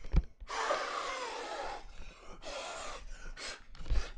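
A person blowing hard across an electric stovetop to clean it: one long blast of breath, then several shorter ones, with low thumps at the start and near the end.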